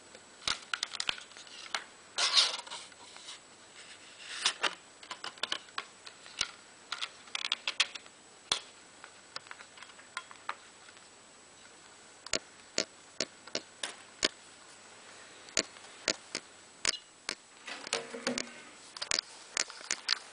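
Discs and a plastic Blu-ray case being handled: a run of sharp plastic clicks and taps, with a few short rustles, as the discs are turned in the hands and pressed onto the case's centre hub.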